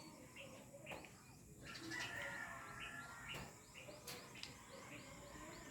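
Faint birdsong: small birds chirping in short, high notes, with a quick run of repeated chirps in the second half.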